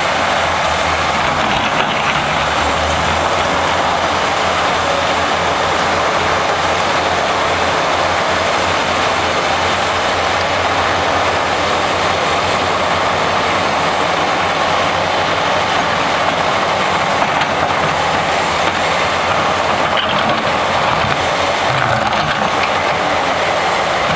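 XCMG XE210 hydraulic excavator running: a steady, loud mechanical noise with a low engine drone underneath.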